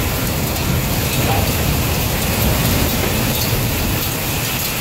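Steady storm roar: wind rumbling on the microphone over an even hiss of heavy rain.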